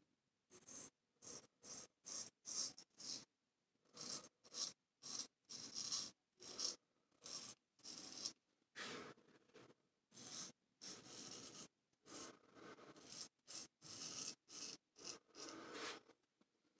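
Large straight razor scraping stubble through shaving lather on the chin and neck: a run of short scraping strokes, about two or three a second, with brief pauses between groups of strokes.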